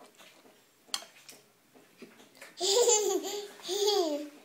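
Baby laughing in two loud, high, wavering peals starting about two and a half seconds in, after a faint click about a second in.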